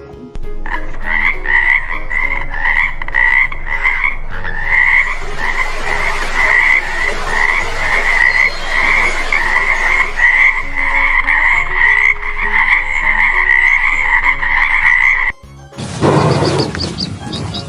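A frog croaking over and over, about two calls a second, each call with a nasal two-band pitch. The croaking stops about 15 seconds in, and a loud noisy rushing sound takes over near the end.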